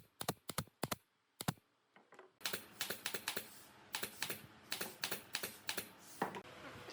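A series of sharp light taps: a few spaced strokes, a short pause, then a quicker run of taps from about two and a half seconds in.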